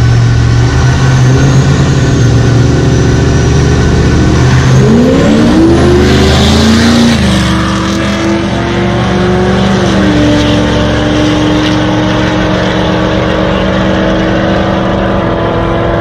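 A pickup truck and a Corvette drag racing. Their engines run steadily at the starting line, rise in pitch as they launch about five seconds in, and then run on at a steadier pitch, stepping down twice, as they pull away down the strip.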